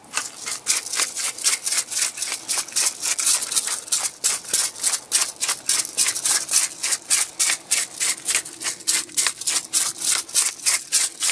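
Hand-twisted pepper mill grinding peppercorns: a steady run of short, gritty rasps, about four a second, one for each twist of the mill.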